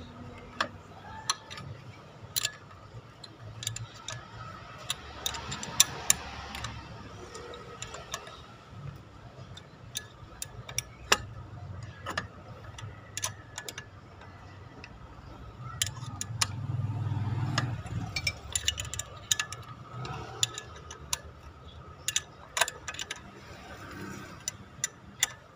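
Steel wrench clicking and tapping on the nuts and studs of a new water pump's hub flange as the nuts are worked, in sharp, irregular clicks. A low rumble swells briefly about two-thirds of the way through.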